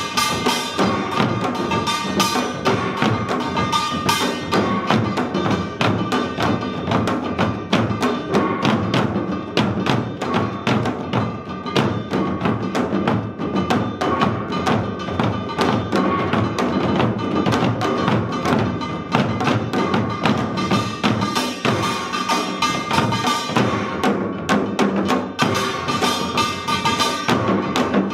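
Korean samul nori ensemble playing seated: janggu hourglass drums and buk barrel drums beat a dense, driving rhythm, with the ringing of small gongs carried over the drumming.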